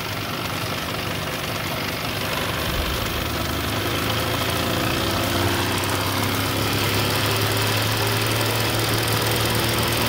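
Wilesco D32 live-steam model engines running steadily, their steam hissing, humming along. The sound grows a little louder over the first few seconds, then holds steady.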